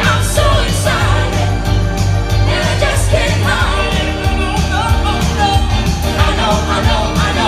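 A live band playing with a singer: a steady bass and drum beat under a wavering lead vocal.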